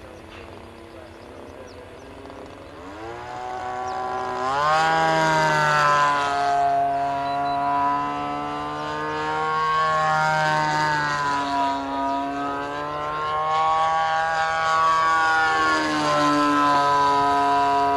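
CRRC Pro GF26i single-cylinder two-stroke petrol engine of a quarter-scale Yak 54 model aircraft in flight. The engine note rises and gets louder about four seconds in, then wavers up and down in pitch as the plane manoeuvres, dropping near the end.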